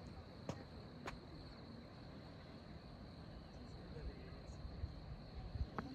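Insects, crickets or the like, trilling steadily at one high pitch over a low outdoor rumble, with a few faint clicks.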